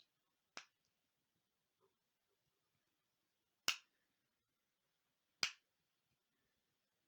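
Small metal knife parts and a screwdriver clicking as they are handled and set down while a folding knife is taken apart. There are three sharp clicks a few seconds apart, and the last two are louder.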